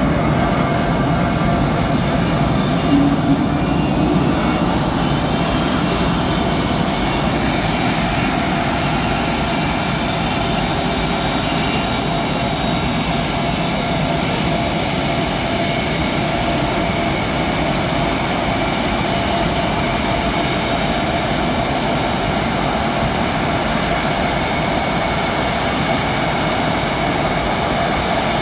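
Jet engines of ROKAF T-50 trainer jets running at ground idle: a steady rumble under a high turbine whine. The whine grows stronger about eight seconds in.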